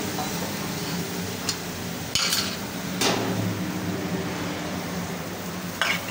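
Curry simmering in a pan over a low steady hum, with a few clinks and knocks of a bowl and utensils being handled at the pan, the loudest about three seconds in.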